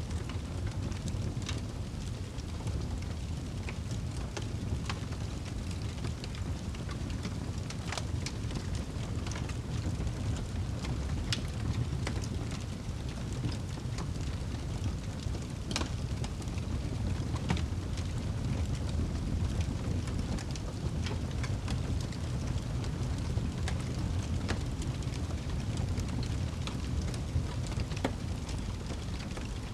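Fireplace fire crackling, with scattered sharp pops at irregular intervals over a steady low rumble.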